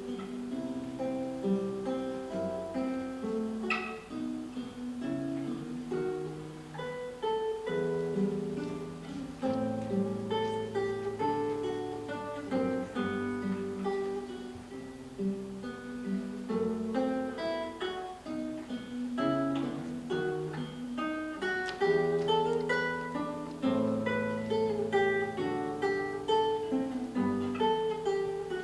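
Solo acoustic classical guitar played fingerstyle: a plucked melody over steady bass notes, in a classical piece.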